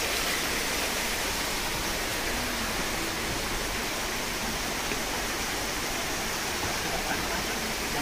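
Steady rush of a mountain stream and waterfall: an even hiss that holds at one level without breaks.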